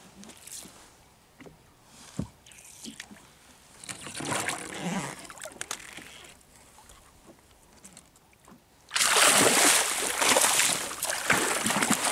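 A hooked wahoo splashing hard at the surface beside the boat as it is hauled in on a handline and gaffed. The loud splashing starts suddenly about nine seconds in, after quieter water sounds.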